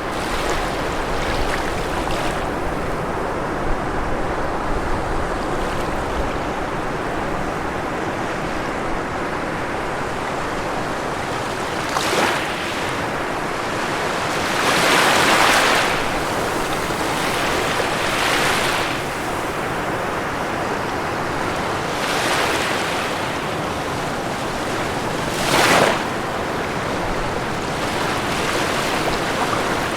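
Ocean surf breaking on a shore: a steady wash of water, with several waves breaking more loudly every few seconds in the second half, the biggest about halfway through and a short sharp one near the end.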